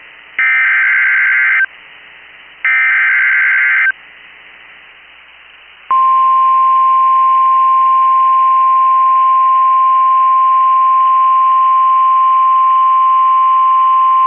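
Two bursts of SAME digital header data, a harsh warbling data tone about a second long each, followed from about six seconds in by the steady single-pitch 1050 Hz NOAA Weather Radio warning alarm tone. Together they are the coded header and alert tone that open a new emergency warning broadcast.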